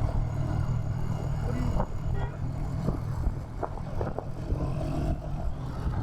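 Royal Enfield Hunter 350's single-cylinder engine thumping steadily through its exhaust while riding in city traffic, with brief sounds of other traffic mixed in.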